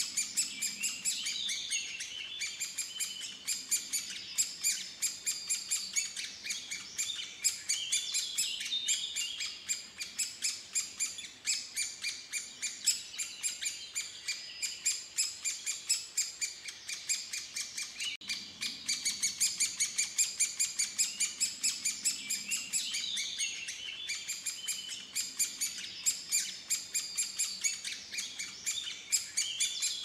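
Great spotted woodpecker nestlings begging from the nest hole: a continuous chatter of high, sharp calls, several a second, swelling and easing in waves.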